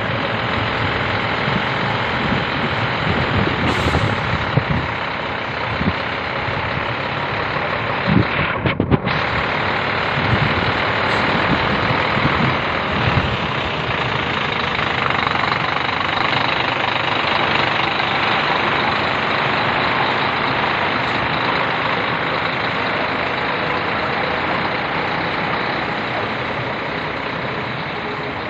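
Heavy diesel truck engine running steadily, with a few short bumps about eight to nine seconds in.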